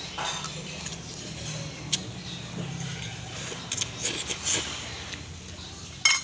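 Eating noises over a bowl of noodles: mouth sounds with metal cutlery clicking and clinking against the bowl now and then, a sharper clink near the end.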